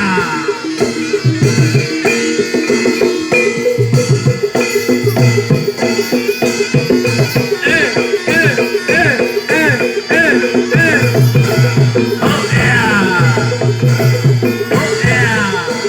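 Live Javanese barongan accompaniment: hand drums beating a steady driving rhythm under gamelan-style metal percussion, with a wavering high melody line over the top.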